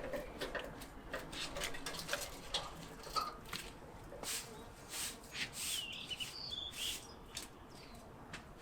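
Small birds chirping in short calls, among scattered light clicks and taps.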